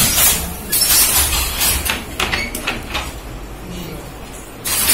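Silk-saree handloom being worked by hand: clacking and knocking of the loom's shuttle and beater, with heavier knocks at the start, about a second in and at the end, and a quick run of sharp clicks in the middle.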